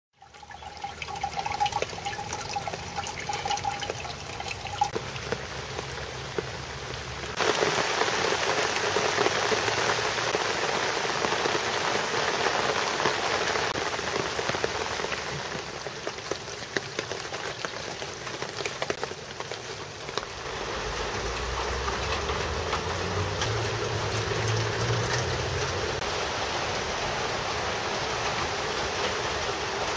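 Steady rain pattering on plastic rain barrels, with many small drops ticking. It gets suddenly louder about seven seconds in.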